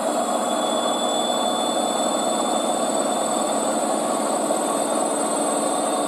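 Front-loading washing machine with its soapy drum spinning: a steady rushing whir with a thin, steady high whine above it.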